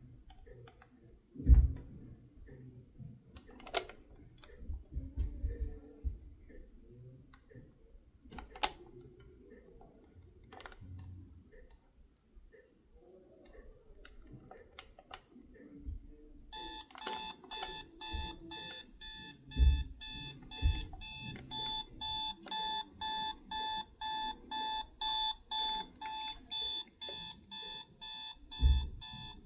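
Spartus 1166-C1 travel alarm clock handled with scattered clicks and knocks, then its alarm sounds about halfway through: a rapidly pulsing electronic beep, about two or three pulses a second, cut off with a knock near the end.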